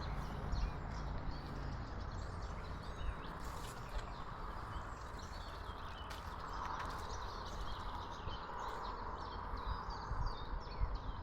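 Small birds chirping, many short calls, over a steady low rumble of outdoor background noise.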